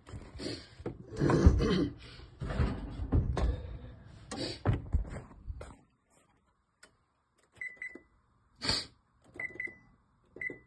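Clattering and knocks as the loaf goes back into the oven and the oven door shuts, followed by a few short high electronic beeps from the oven's timer keypad being set for two more minutes.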